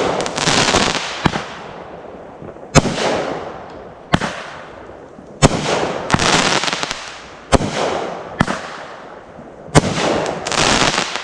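Consumer aerial fireworks going off in a rapid series: about seven sharp bangs, one every second or two, several of them trailed by a second or so of dense crackling.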